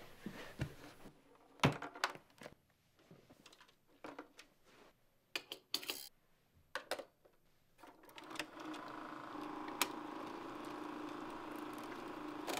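Clicks and knocks of a plastic film reel being handled and fitted onto a Sankyo Sound-500 Super 8 projector, then from about eight seconds in the projector's motor starts and runs with a steady whir.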